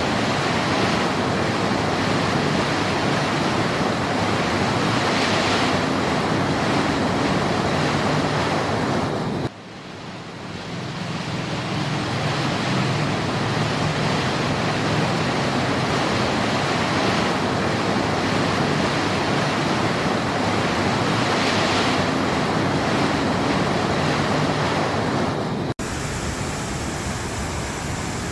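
Fast-flowing stream with a strong current, a steady rush of water. The sound drops suddenly about ten seconds in and swells back over a couple of seconds, and near the end it changes abruptly to a thinner rush where the recording cuts to another take.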